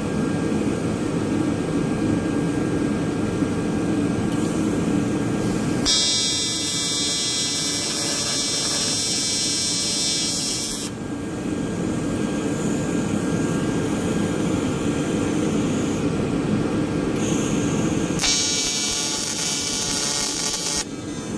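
AC TIG welding arc on aluminum from a PrimeWeld TIG 225X at about 150 amps, buzzing twice as tacks are laid down: once for about five seconds, then again for a couple of seconds near the end. A steady whir runs underneath.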